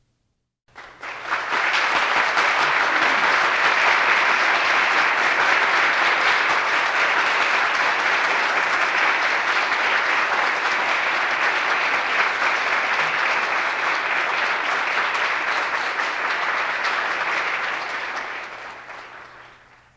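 Crowd applause, a steady round of clapping that starts abruptly and fades out near the end.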